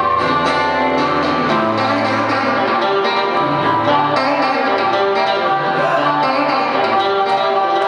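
Live blues band playing an instrumental stretch: blues harmonica and electric guitar over a steady beat.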